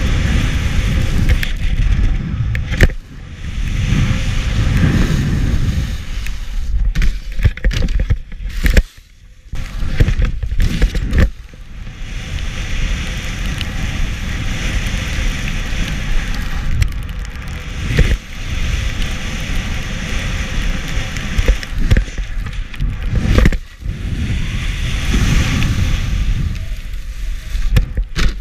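Skis sliding and carving over groomed snow while wind rushes over the action camera's microphone, with a few sharp knocks and brief lulls in the rush.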